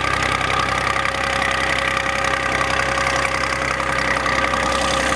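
Volvo BM 400 tractor engine running steadily at low revs, with an even hum that does not change.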